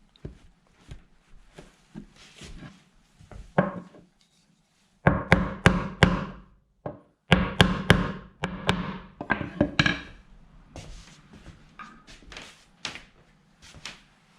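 Wooden knocks and thuds from pieces of wood being handled and struck in a workshop. Scattered light knocks first, then after a brief pause two dense runs of sharp, loud strikes in the middle, which are the loudest part, and a few more knocks near the end.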